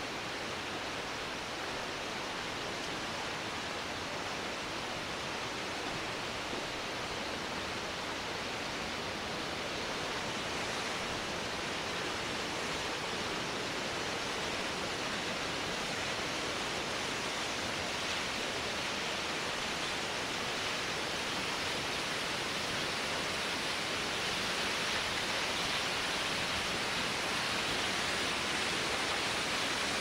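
The Johanneswasserfall, a tall mountain waterfall, rushing as a steady wash of falling water that slowly grows louder.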